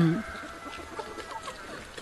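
Chickens clucking faintly in short scattered calls. A person gives a brief hummed "mm" at the very start.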